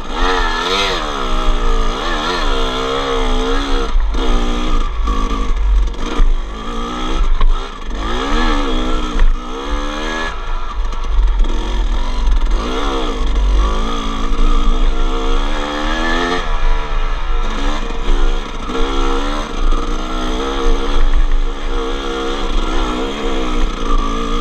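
250cc two-stroke dirt bike engine being ridden along a trail, revving up and falling back over and over as the rider works the throttle and gears, with a constant low rumble underneath.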